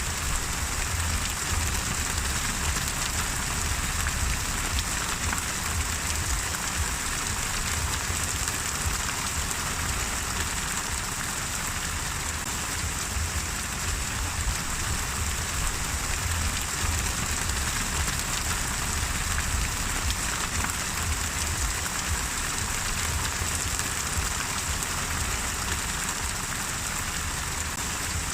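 Steady rain falling, a dense even patter of drops on surfaces with a low background rumble.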